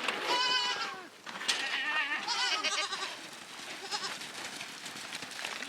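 Goats bleating: one long wavering bleat just after the start, followed by several shorter bleats over the next couple of seconds and fainter ones later.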